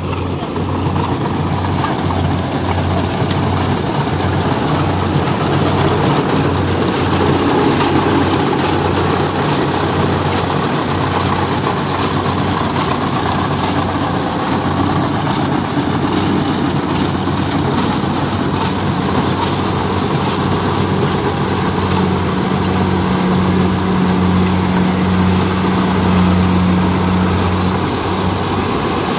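Kubota DC-70 combine harvester running steadily as it cuts and threshes rice, its engine giving a continuous low hum. The hum grows stronger over the last few seconds as the machine comes close.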